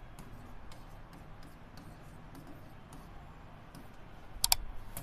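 Marker tip writing on a board: faint scattered clicks and taps as letters are drawn, with a sharper, brighter squeak-click near the end.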